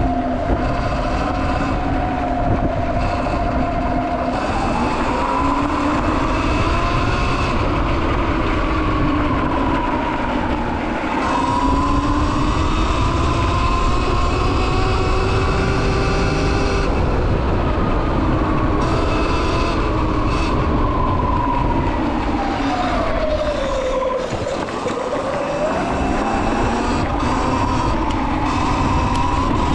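Sur Ron X electric dirt bike riding up a dirt trail: the motor's whine rises and falls in pitch as the bike speeds up and slows down, dipping low and climbing again about three-quarters of the way through, over a steady rumble of wind and tyres on the gravel.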